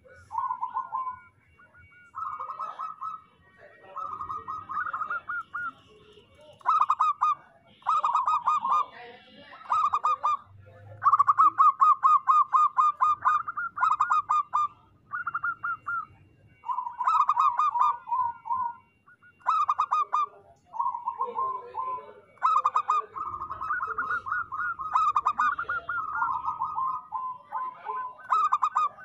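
Zebra dove (perkutut) singing: phrase after phrase of rapid staccato cooing notes, with short pauses between the phrases.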